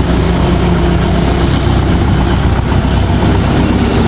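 Kubota L5018 tractor's diesel engine idling steadily.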